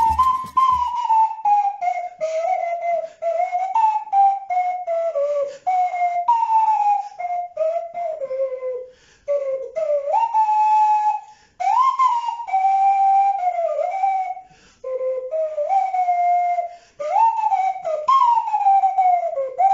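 A homemade flute made of a cardboard toilet-paper tube, CDs and clothespins being blown, giving a whistle-like tone in short phrases. The pitch mostly slides downward, with occasional upward scoops. A backing track with a beat fades out about a second in.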